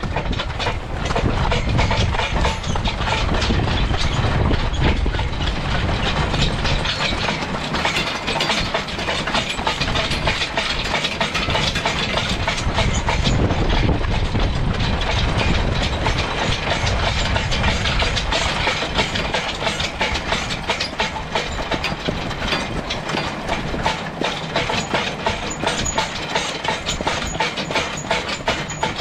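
Excavator track being dragged along the road by a team of draft horses: a continuous dense clattering and scraping.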